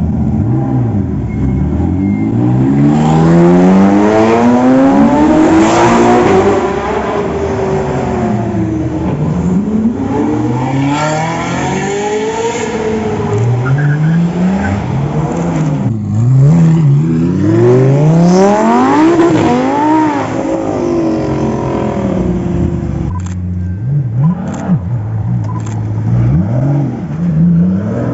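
Supercar engines revving and accelerating hard, their pitch climbing and dropping again and again through throttle blips and gear changes. A few sharp cracks come near the end.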